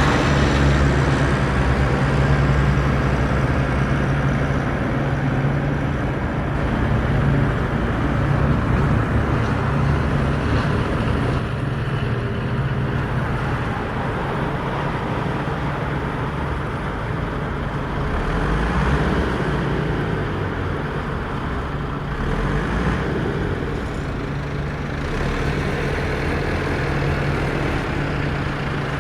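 Off-road vehicle's engine running steadily with a low hum, under continuous road and driving noise.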